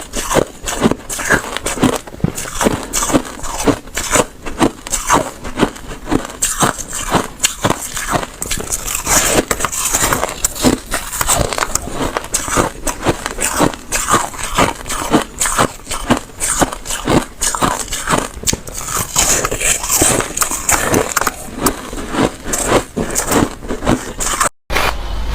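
Close-up biting and chewing of slushy ice: a fast, irregular run of wet crunches and crackles with no pause.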